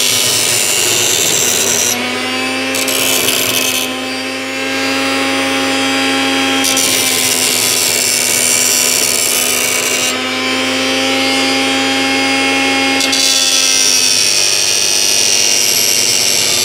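A salvaged blender motor spinning a grinding disc with a steady whine, as a steel knife blade is pressed to the disc in four passes, each pass adding a high, hissing grind.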